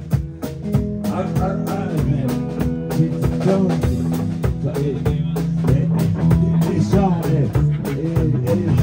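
Live rock band playing: drum kit keeping a steady beat under electric guitars and bass, with a man singing from about a second in.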